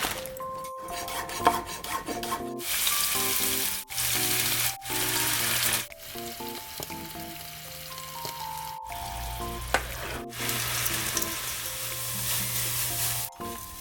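Food sizzling in oil in a frying pan, in several short stretches that start and stop abruptly at edits, over light background music.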